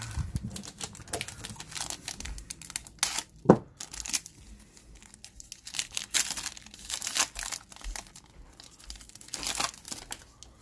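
Foil baseball-card pack being torn open by hand, its wrapper crinkling in irregular rustles, with one sharp, loud rip about three and a half seconds in.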